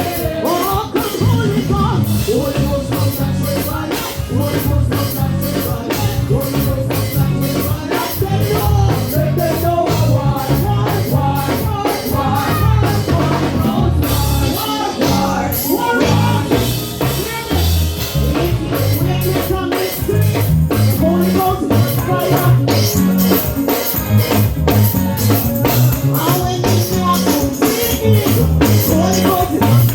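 Live worship band playing: a drum kit keeps a steady beat under bass and a sung melody.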